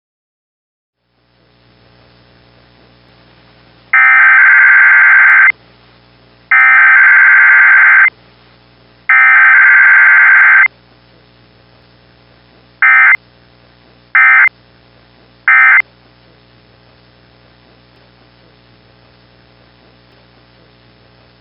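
Emergency Alert System SAME digital data bursts: three long buzzing header bursts of about a second and a half each, then three short end-of-message bursts, with no attention tone between them. A low steady electrical hum from the receiver runs underneath, starting about a second in.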